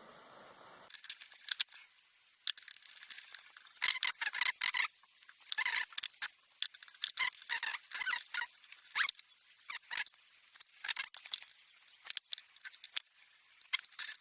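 Small hand tools and the plastic and metal parts of a compressor pressure switch being worked apart by hand: an irregular run of light clicks, taps and short scrapes that starts about a second in.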